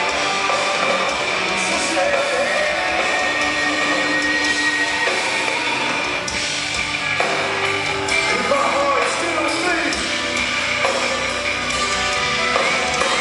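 Metalcore band playing live and loud, with electric guitars to the fore, heard from the crowd.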